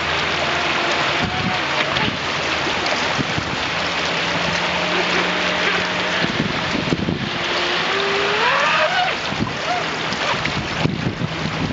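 Fast flood water rushing over a shallow riverbed. Through it comes the faint whine of a radio-controlled jet boat's motor, which climbs in pitch about eight seconds in.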